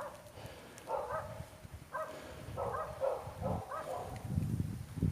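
A dog barking, short barks about once a second with a quicker run of barks about three seconds in. Low rustling comes in near the end.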